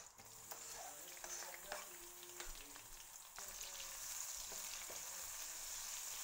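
Sliced onions sizzling in hot oil with chopped garlic in a frying pan, stirred with a wooden spoon. There are a few light knocks over the first three seconds; the sizzle grows louder and steadier about three and a half seconds in as the onions take the heat.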